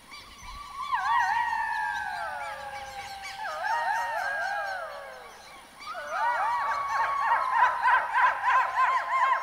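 A chorus of golden jackals howling: several high, quavering wails overlapping, sliding down in pitch. They fade briefly past the middle, then more voices join in a louder, denser chorus.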